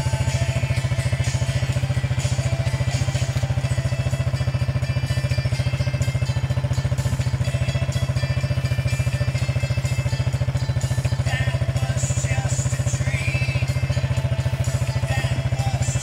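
A small engine running steadily: a low drone with a fast, even pulse that does not change.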